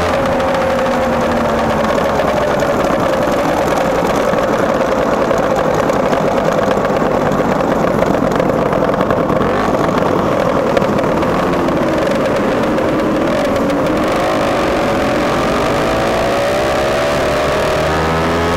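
Vintage Lambretta scooter's two-stroke single-cylinder engine running steadily while riding, its pitch dipping slightly midway and climbing again near the end, with wind noise on the microphone.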